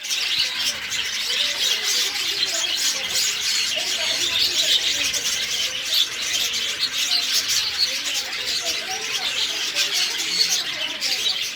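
Dense, continuous chorus of many caged birds chirping and calling at once, with no pauses.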